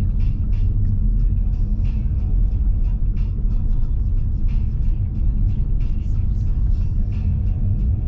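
Car driving slowly, heard from inside the cabin: a steady low rumble of engine and tyres on the road, with faint irregular ticks over it.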